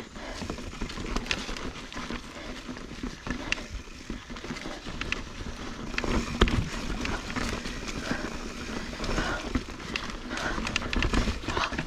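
Mountain bike rolling fast over rocky dirt singletrack: tyre noise on dirt and stone with frequent sharp clatters and knocks as the bike hits rocks, over a low rumble. The hardest knock comes about halfway through.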